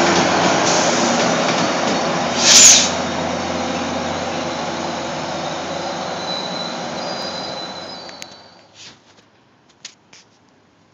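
A Metro-North train led by a BL20GH diesel locomotive rolls past close by and away, its wheels and cars making a dense rumble that slowly fades. There is a sharp, loud burst about two and a half seconds in, and a thin wheel squeal near the end of the pass. The train sound dies out after about eight seconds, leaving a few faint clicks.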